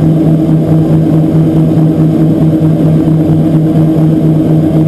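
Let L-410 UVP-E20's twin turboprop engines and propellers heard inside the cockpit on final approach: a loud, steady low drone with an even throb about three times a second.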